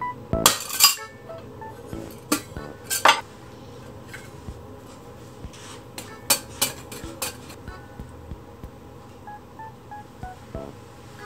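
Rice paddle and chopsticks clinking against a stainless-steel lunch jar and bowls while rice and beef are packed into a bento, with a cluster of sharp clinks in the first three seconds and a few more around six to seven seconds in.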